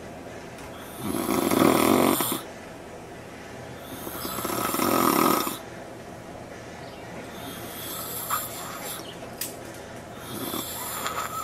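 A sleeping man snoring: four long snores about three seconds apart, the first two loud and the last two softer.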